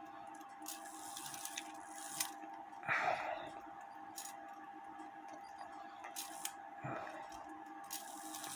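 Small clicks, scrapes and rubbing from hands working an antique cuckoo clock movement, its hands being turned and its trip wires handled, with two louder rustling scrapes about three and seven seconds in over a faint steady hum.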